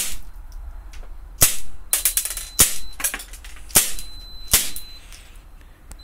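A pistol firing about eight shots into an Android tablet's screen: a shot at the start, another about a second and a half in, a quick run of several around two seconds, then single shots near the middle, just before four seconds and about four and a half seconds in. A faint high steady beep comes and goes between the later shots.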